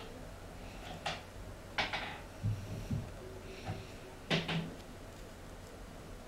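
Scattered light clicks and soft knocks of handling noise around a small plastic tank, with a sharper double click about four seconds in.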